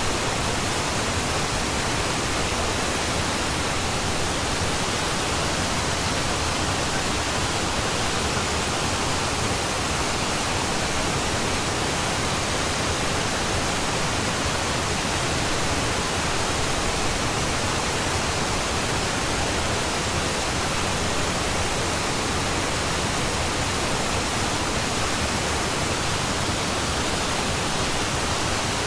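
Steady, unchanging hiss of pink-type noise, even from low to high pitch, with no beat or melody: the masking noise track of a subliminal audio.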